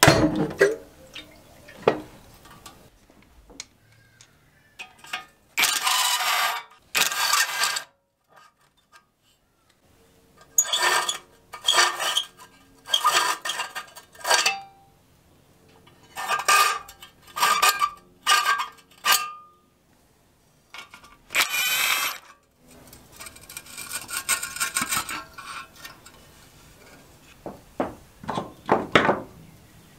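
Metal engine parts and hand tools clinking, scraping and rattling in a series of short bursts with quiet gaps, as a small Briggs & Stratton engine is taken apart by hand.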